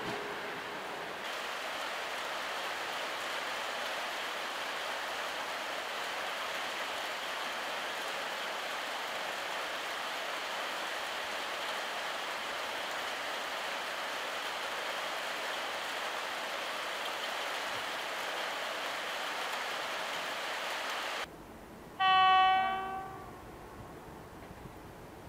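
Freight train rolling past with a steady rushing noise. It breaks off suddenly, and about a second later a railway locomotive horn gives one loud blast, about a second long.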